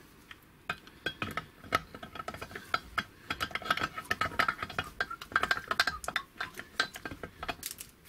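Steel gear cluster clinking and rattling against the aluminium Vespa BFA 306 engine case as it is set in by hand: a fit check of whether the gears scrape the inside of the case. Dense small metallic clicks, some ringing briefly, start about a second in.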